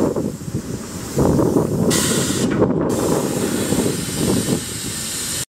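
Wind buffeting the microphone, a gusty rumble, with a brighter hiss for about a second near the middle.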